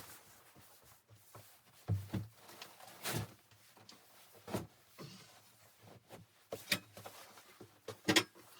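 A scattered series of short knocks and clicks, a few seconds apart, with the loudest cluster near the end, in a small enclosed room.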